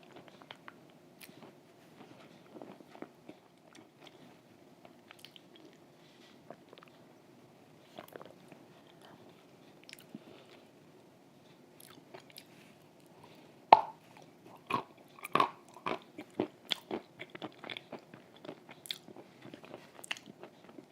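Cream-soaked chalk being chewed close to the microphone: soft wet chewing at first, then a sharp bite about two-thirds of the way through and a run of dull crunches, roughly two a second.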